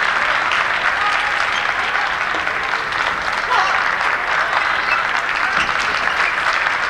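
Steady crowd noise in a large sports hall: continuous applause and clapping mixed with many spectators' voices.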